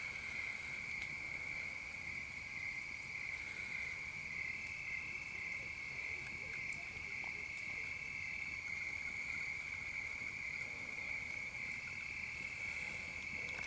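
Steady, shrill night chorus of small calling animals, one unbroken high-pitched trill with no pauses.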